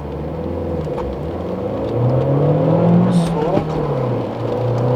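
Opel A14NET 1.4-litre turbo four-cylinder petrol engine accelerating hard from a standstill, its pitch climbing, dipping about four seconds in at a gear change, then climbing again.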